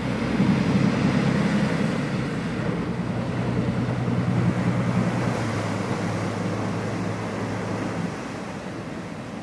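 Aluminium work boat's engines running under heavy power with a steady low drone, its wash churning the water as it pivots into the berth. The sound eases off about eight seconds in.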